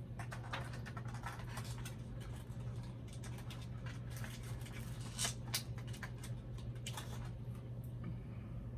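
Small plastic doll accessories and their packaging handled by hand: irregular clicks, crinkles and scratches, over a steady low hum.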